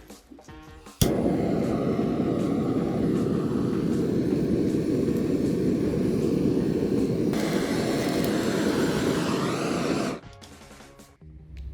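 An electric kitchen appliance motor runs loudly and steadily for about nine seconds. It switches on suddenly about a second in and cuts off suddenly near the end, and its sound turns brighter about two-thirds of the way through.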